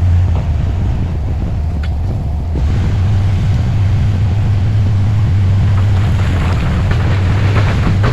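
Diesel engine of heavy earthmoving machinery running with a steady low rumble. From about two and a half seconds in, a rougher grinding noise builds over it and is loudest near the end.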